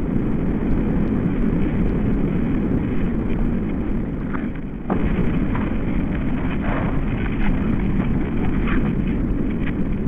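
Wind rushing through tree leaves, slowed and pitched down into a steady low rush with nothing bright in it. It dips briefly about halfway through, then resumes.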